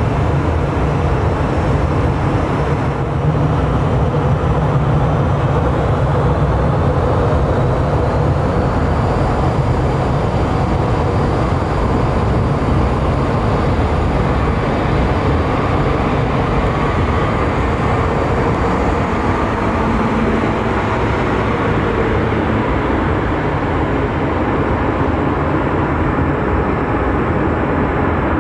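Boeing 737-800's CFM56-7B jet engines at taxi power, a steady rumble with a faint high whine.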